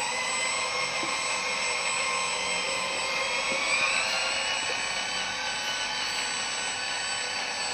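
Hydraulic system of a 1/12-scale metal RC excavator with a double pump running: a steady high whine from the pump and motors as the upper body swings round. One tone in the whine rises in pitch about three to four seconds in.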